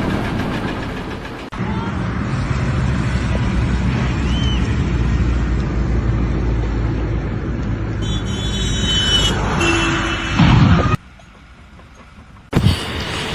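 A heavy vehicle's engine running with a steady low rumble. High squealing tones come in about eight seconds in, then a loud burst, and the sound drops off suddenly to much quieter for over a second.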